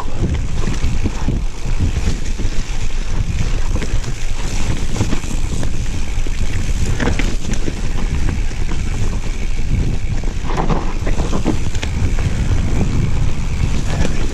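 Wind buffeting the microphone of a camera on a moving mountain bike, over the continuous rumble of the tyres rolling over rough, rocky trail, with scattered knocks and rattles from the bike hitting bumps.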